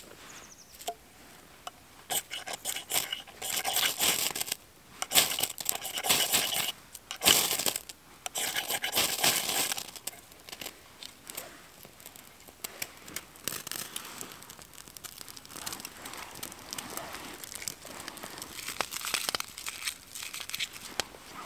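A knife's back scraped hard down a ferrocerium rod, a run of rasping strokes throwing sparks onto birch-bark shavings until the bark catches about ten seconds in. After that comes a faint crackle of burning bark and kindling.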